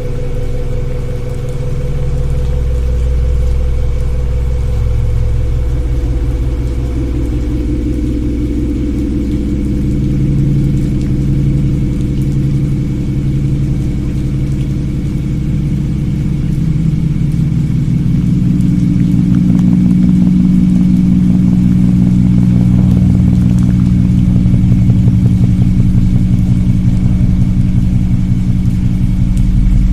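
Loud low drone of the kind passed around as a 'strange sound in the sky': several steady deep tones sounding together, shifting in pitch every few seconds and growing a little louder about halfway through.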